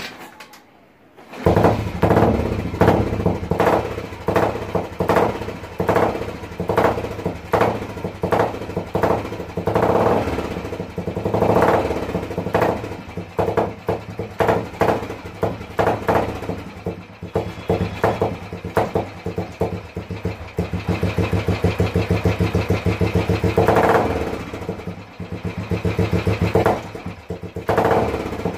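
1984 Royal Enfield Bullet 350's single-cylinder four-stroke engine kick-started and catching about a second and a half in. It then runs with its exhaust beat rising and falling again and again under repeated throttle blips, with a steadier stretch of even thumping near the end.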